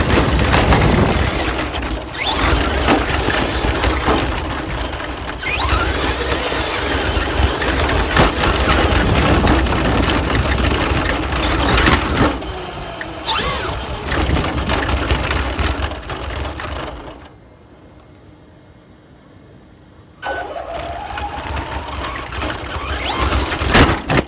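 Remote-control car driving, recorded from on board: its motor pitch rises and falls with the throttle over a constant rumble and rattle from the wheels on grass and pavement. The drive noise drops away for about three seconds in the second half, then picks up again with a rising pitch.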